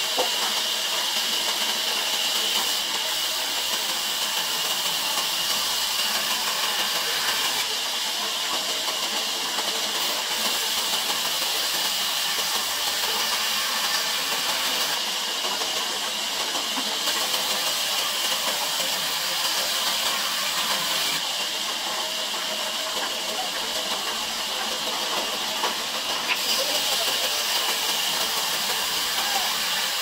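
Large band sawmill running, its blade cutting timber lengthwise into planks: a steady hiss with no pauses.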